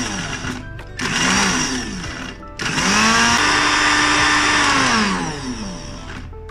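Countertop electric blender motor run in pulses, chopping green chilies, garlic, ginger and cumin dry: a burst that winds down just after the start, a short burst about a second in, then a longer run from under three seconds in. Each time it is released the motor's pitch falls as it spins down.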